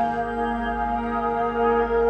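Background music with sustained, steady held tones and no clear beat.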